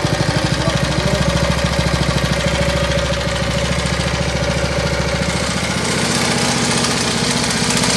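Small single-cylinder 6.5-horsepower go-kart engine idling just after a pull start, its choke just taken off, with even firing pulses. Its note shifts slightly about five to six seconds in.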